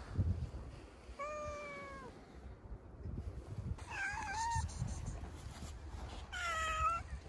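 Stray cats meowing: three separate drawn-out meows, about two to three seconds apart.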